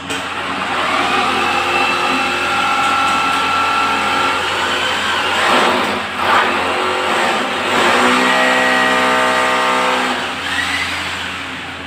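Power drill motor running in two long runs of steady pitch, with a rougher, noisier stretch between them about six seconds in.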